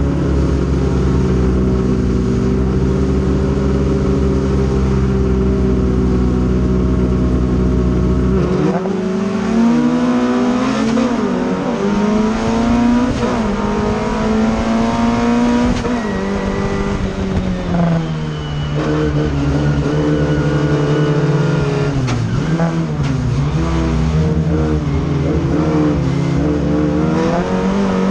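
Engine of a Fiat 600 folkrace car heard from inside the cabin, held at steady revs at the start for about eight seconds, then rising and falling in pitch through gear changes as the car launches and races.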